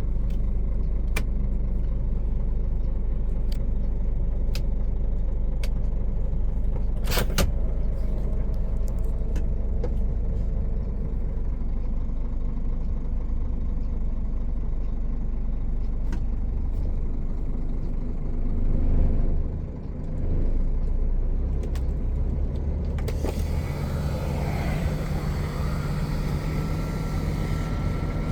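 Heavy container truck on the road, heard from inside the cab: a steady diesel engine and road rumble with scattered small clicks and rattles, one sharper knock about 7 seconds in. Around 19 seconds the sound swells and briefly drops, and after that the engine settles into a steadier, higher note.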